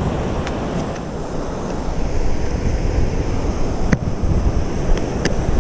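Surf washing on a beach with wind buffeting the microphone, a steady rushing noise. A few light clicks from handling, the clearest about four seconds in.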